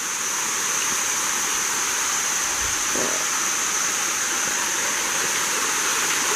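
Water of a cascading waterfall rushing over rock: a steady rushing noise that grows a little louder in the first second.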